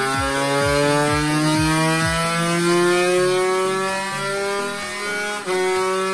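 Kawasaki Ninja 150RR two-stroke single-cylinder engine at full throttle on a chassis dyno, revs climbing steadily high in the rev range during a power run. The pitch dips sharply about five and a half seconds in, then the engine keeps running hard.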